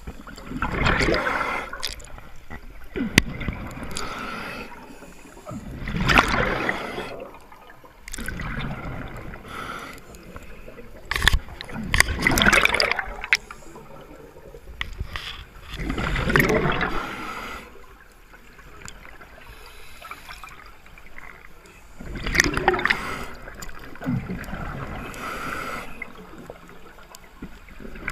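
Scuba regulator breathing underwater: five loud, bubbly exhalations about every five seconds, with quieter breathing between them and a few sharp clicks.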